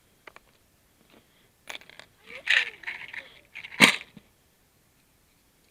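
A single shot from a Trailblazer LifeCard single-shot .22 WMR pistol, a sharp crack a little under four seconds in, preceded by a few light mechanical clicks.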